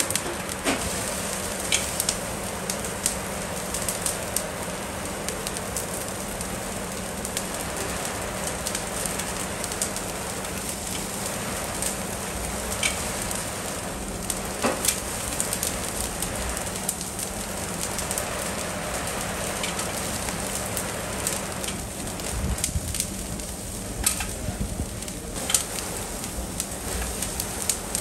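Thick bone-in beef steaks sizzling on a grill over glowing embers, fat flaring in the flames with a steady crackle and scattered sharp pops. A steady low hum runs underneath.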